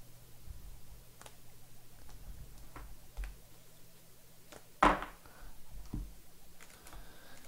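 Hard plastic trading-card cases clicking and knocking against each other and the table as they are handled and set down; the loudest clack comes a little before five seconds in, with another about a second later.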